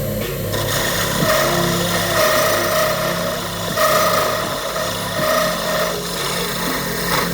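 A small power tool running steadily, with a rasping, scraping noise of material being worked that swells and eases.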